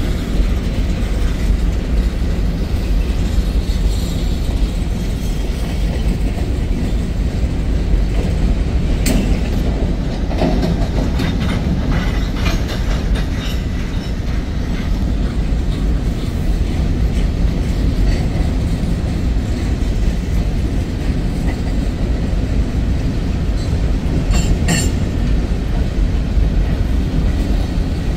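Freight cars of a Norfolk Southern manifest train rolling past, a steady heavy rumble of steel wheels on rail. Sharp clacks sound over the rail joints about nine seconds in, in a cluster a few seconds later, and twice near the end.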